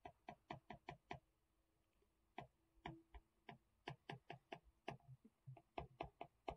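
Faint, rapid ticks of a stylus tip tapping on a tablet's glass screen during handwriting. They come in quick runs, stop for about a second near the start, then resume and grow denser toward the end.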